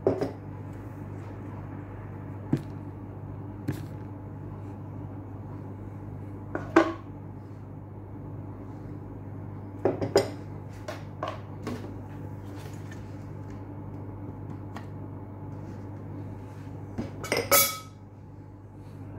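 Glass bowls and a metal spoon clinking and knocking on a wooden tabletop in a few scattered strikes, the loudest about a third of the way in and near the end, over a steady low hum.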